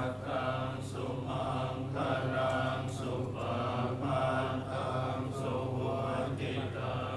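Buddhist chanting: a steady recitation of a mantra in short, repeated phrases about a second apart.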